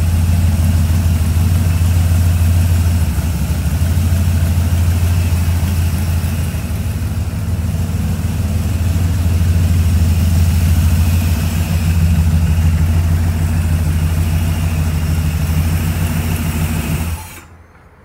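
1978 Chevrolet Corvette C3's V8, fitted with a FiTech EFI conversion and side-exit exhaust pipes, idling steadily with a deep, even hum. It cuts off abruptly near the end.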